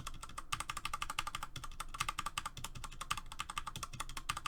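Corsair K95 mechanical keyboard being typed on rapidly: a fast, continuous stream of key clicks and keystroke bottoming-out.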